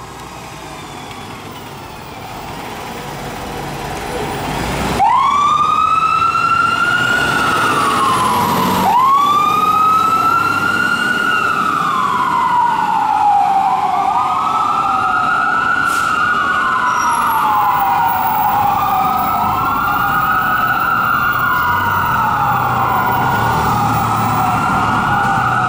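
Fire engine sirens (Whelen 295 electronic sirens) sounding the wail tone: each cycle rises quickly and falls slowly. They come in loudly about five seconds in, over truck and road noise that builds through the first few seconds. From about halfway on, two sirens wail out of step with each other.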